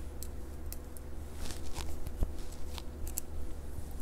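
Soft rustling and scattered light clicks of a knitted hat and clothing being handled and pulled on, over a steady low hum.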